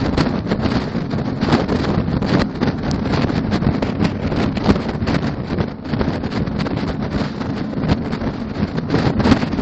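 Strong wind buffeting a microphone riding on top of a truck at highway speed: a steady heavy rush with constant irregular gusty thumps, over the low rumble of the road travel.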